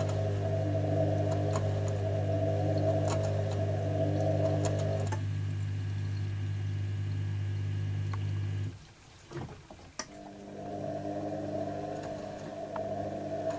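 Panasonic front-loading washing machine tumbling a near-full load of wet linen: the drum motor runs with a steady hum. Its drive stops abruptly about nine seconds in, there is a click, and about a second later the motor starts the drum turning again.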